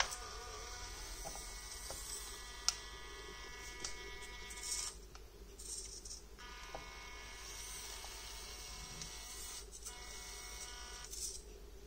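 Orlandoo Hunter OH32M02 1/32 micro crawler's N20 105 rpm gear motor whining steadily under throttle as the truck climbs over rocks. It cuts out about five seconds in, starts again a second and a half later and stops near the end, with a few sharp clicks along the way.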